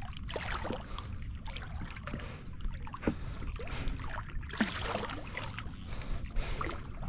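Small splashes and drips of water as a cast net is hauled in by hand from the bow of a canoe, over a steady low rumble.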